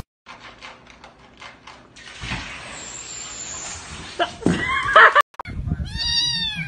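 A domestic cat meows near the end, a drawn-out meow whose pitch rises and falls. Before it come faint ticks, a hiss with a brief high tone, and a sharp loud knock about five seconds in.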